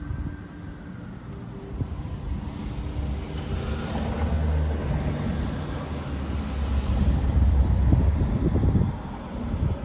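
Low vehicle rumble with a few steady hums, building through the middle and loudest near the end, with wind on the microphone.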